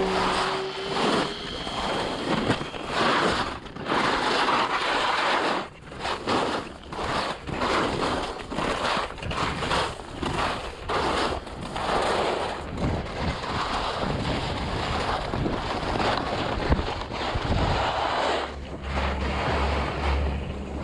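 Wind on the microphone and skis scraping over snow during a ski run. The rushing noise surges and fades every second or so, and a low steady hum joins in near the end.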